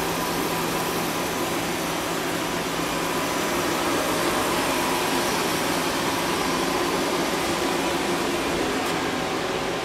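Steady mechanical hum and hiss with a low drone, unchanging throughout.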